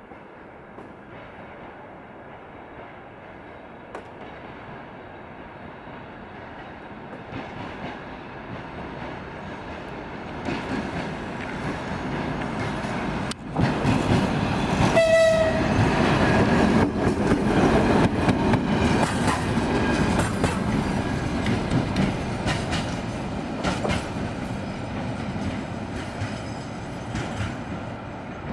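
TEM18DM diesel shunting locomotive with a gondola car approaching and passing, its engine and wheels growing steadily louder. It gives one short horn blast about halfway through. Wheels knock over rail joints as it goes by, then the sound eases off slightly.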